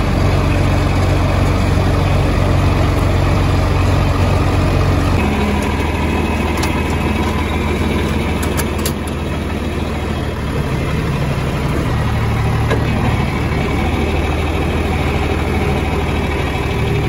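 John Deere farm tractor's engine running, heard from the operator's seat, with its engine note changing about five seconds in as the tractor moves.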